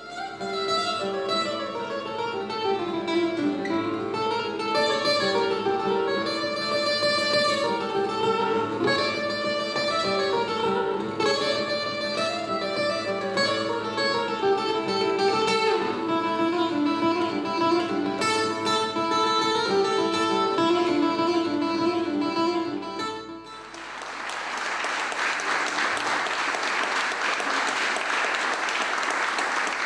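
Solo acoustic guitar played live, a quick flowing run of plucked notes. It stops about three-quarters of the way through, and the audience breaks into applause.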